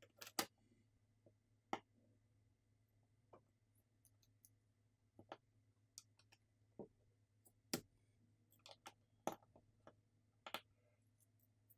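Small, sharp clicks and taps at irregular intervals, about a dozen, as the parts of a disassembled Samsung Galaxy S25 Ultra smartphone are fitted back together with hand tools.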